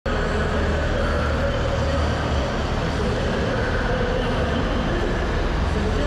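Straight-piped International Harvester 1066 pulling tractor's diesel engine idling steadily, heard close up from the driver's seat beside the exhaust stack.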